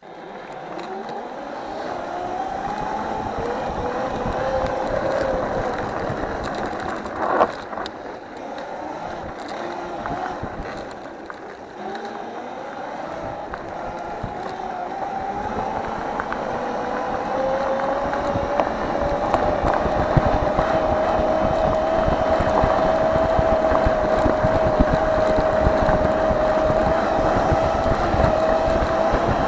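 An engine running and speeding up several times, its pitch rising and then holding steady as it gets louder over the second half, with a single sharp knock about seven seconds in.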